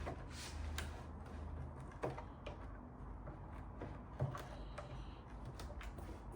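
Scattered light clicks and knocks, a handful over a few seconds, as the small parts of a model steam engine are handled, over a steady low hum.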